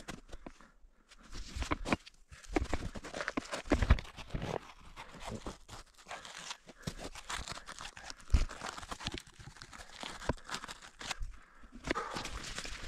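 Irregular crunching and rustling with scattered knocks, a few of them louder, in no steady rhythm.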